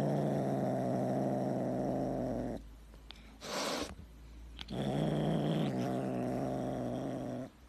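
Tabby kitten growling low and steady with a wooden stick clamped in its teeth, the growl of a kitten guarding something it holds. Two long growls, each about two and a half seconds, with a short breathy sound between them.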